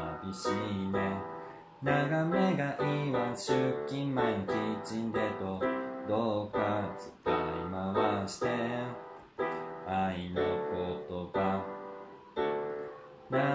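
Electronic keyboard in a piano voice playing chords and melody of a pop song, phrase by phrase, with a singing voice over it.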